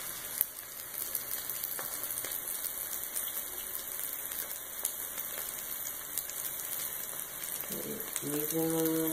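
Oil sizzling steadily in a skillet as flour-coated balls deep-fry, a continuous high hiss. A few light clicks come in the first couple of seconds.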